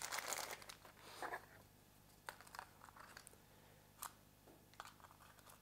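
Plastic wrapping rustling and crinkling as a camera battery is unwrapped, then a few faint clicks and taps as the mirrorless camera body is handled.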